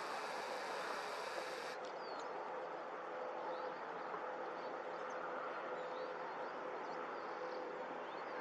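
Steady outdoor background hiss with faint, scattered high chirps of small birds. The hiss loses its highest part about two seconds in.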